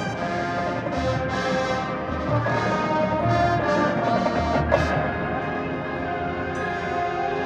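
High school marching band playing live, brass-led with percussion, heard from the stands of a large indoor stadium.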